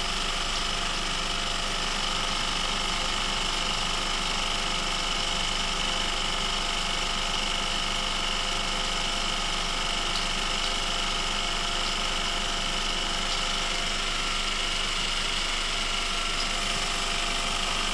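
UF600 vibrating sieve running, its vibration motor giving a steady hum with a steady high tone. It is shaking on vibration alone, the ultrasonic not yet switched on.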